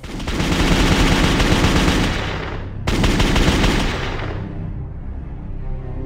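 Sound effect of rapid automatic gunfire in two long bursts, split by a brief break about three seconds in, fading away over the last two seconds under a low drone.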